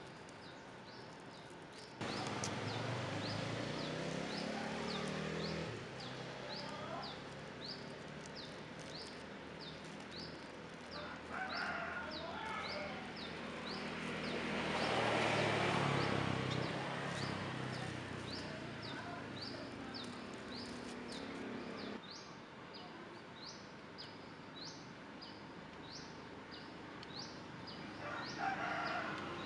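A rooster crowing in the background, loudest about halfway through, over a high, quick chirp repeated more than once a second throughout.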